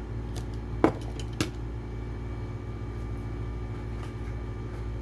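Two sharp clicks about a second in, half a second apart, as small die-cast toy cars are handled, over a steady low hum.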